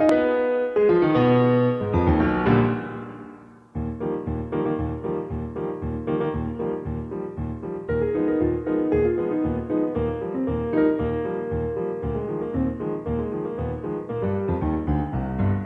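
Background piano music: a run of notes fades away about four seconds in, then a new passage starts with evenly repeated low notes under held chords.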